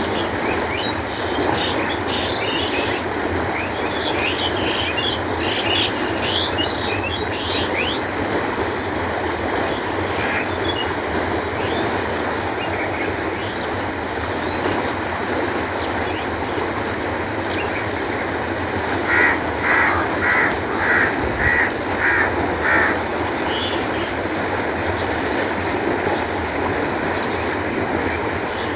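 Canal water flowing steadily. Small birds chirp in the first several seconds, and about two-thirds of the way in a bird gives a run of about seven loud calls.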